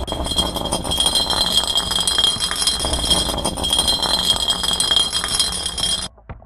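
Continuous loud rattling, clattering noise with a steady high tone running through it, cutting off abruptly about six seconds in.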